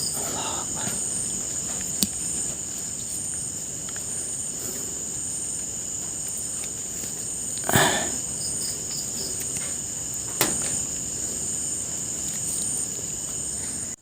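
Crickets chirring steadily in a high, even drone, with a few sharp clicks and one short rustle about halfway through.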